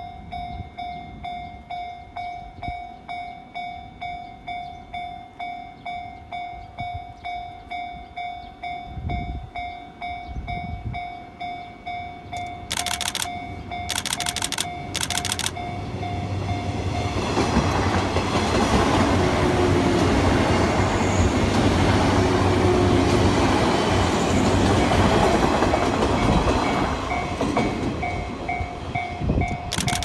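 A level-crossing bell rings in steady, evenly spaced strokes. Three short high-pitched blasts sound about halfway through. Then a JR West 117 series electric train passes close by loudly for about ten seconds, drowning the bell, which is heard again near the end.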